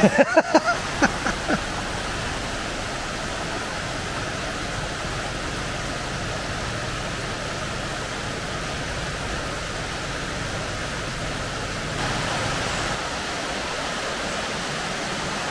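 Running water of a rocky woodland stream tumbling over small cascades: a steady rushing, a little louder near the end.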